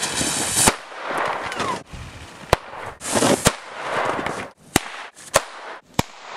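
About six sharp firecracker bangs spread over several seconds, with stretches of hissing noise between them: firecrackers set off in place of rifle shots at the muzzle and as bullet impacts in the snow.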